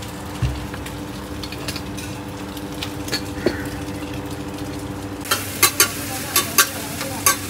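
Food sizzling in a hot frying pan at a hawker stall over a steady electric-fan hum. The sizzle grows louder about five seconds in, with several sharp clinks of a spatula or utensils.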